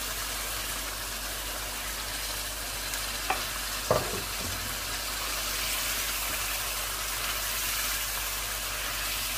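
Chicken, onion and capsicum curry sizzling steadily in a frying pan. Tomatoes and green chillies go in, with two short knocks a little past three seconds in.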